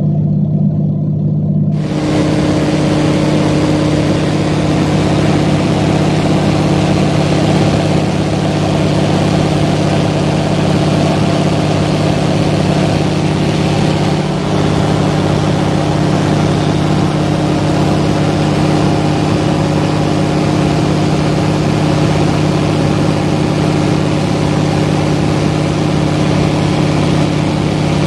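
Small plane's engine and propeller droning steadily, heard from inside the cabin, with a hum held at one pitch under a loud rushing hiss. About two seconds in, the sound changes abruptly from a muffled low hum to the full, brighter drone.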